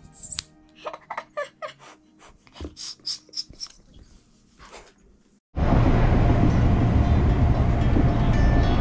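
A small child giggling in short bursts over faint background music. About five and a half seconds in, this gives way to a loud, steady outdoor rumbling noise.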